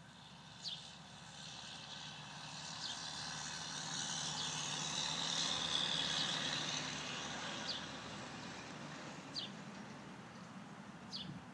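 Engine noise of a distant passing vehicle, swelling to its loudest about halfway and then fading away. Short high chirps of a bird sound now and then over it.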